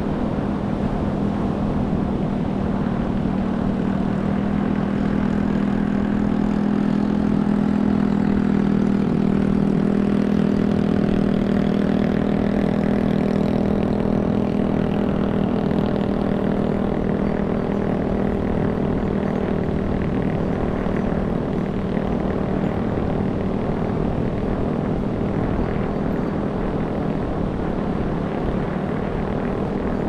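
A steady engine drone with a low hum and overtones above it, over a broad wash of noise. It swells a little in the first third and then eases off slowly.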